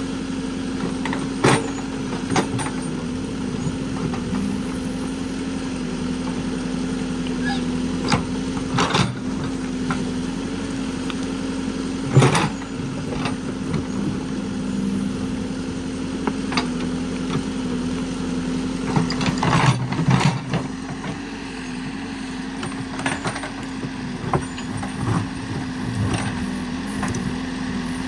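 Cat backhoe loader's diesel engine running steadily under load while the backhoe arm digs. There are a few sharp knocks and clunks of the bucket and arm working in soil and stones, the loudest about halfway through and another cluster about two-thirds of the way in.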